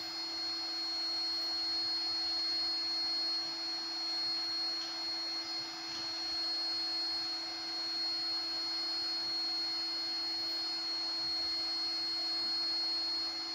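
800 W water-cooled CNC router spindle running steadily at high speed: a constant whine, with a fainter high-pitched whine above it.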